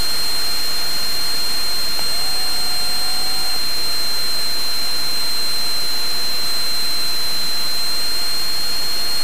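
Steady electronic hiss of static with a constant high-pitched whine on the aircraft's headset and radio audio feed. A faint short tone sounds about two seconds in.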